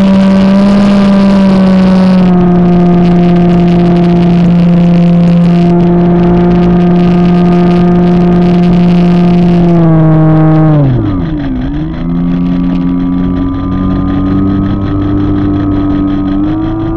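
Model airplane's motor and propeller, recorded from the onboard camera with wind rush. It holds a steady drone, then about ten seconds in the pitch drops sharply as the throttle is pulled back, and it comes back as a lower, quieter drone that rises slightly near the end.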